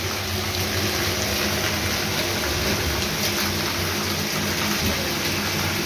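Rain falling hard on the street, the pavement and the awning roof overhead: a steady hiss. A low steady hum runs underneath it.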